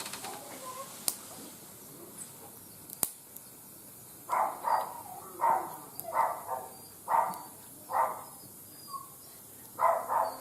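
A dog barking over and over, short barks about once a second, starting about four seconds in. Before that, a few sharp crackles from a wood fire burning in a barbecue grill.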